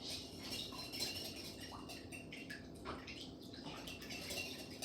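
Faint, irregular clicks and taps of kitchen utensils and a bowl being handled.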